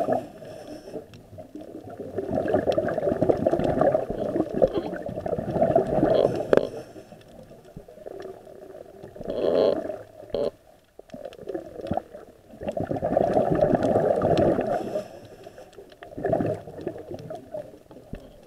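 Scuba diver breathing through a regulator underwater: exhaled bubbles rumble and gurgle past the camera in about four bursts of a few seconds each, with quieter stretches between them.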